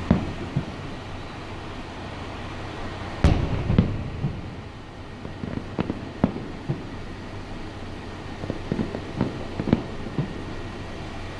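Aerial fireworks going off: a sharp bang at the start, two heavy booms about three seconds in with a low rumbling tail, then a scattered run of smaller bangs and pops.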